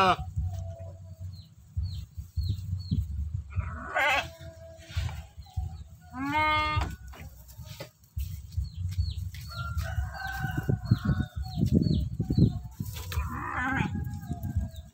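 Sheep bleating several times in separate calls, with a rooster's crow ending right at the start and small birds chirping high in the background over a low rumble.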